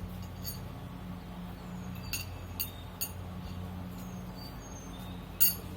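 Several light metallic clinks, the loudest near the end, over a steady low hum.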